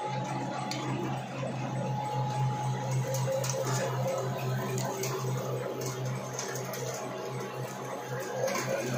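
Bar threading machine running with a steady motor hum and a thin steady tone above it, with scattered light clicks.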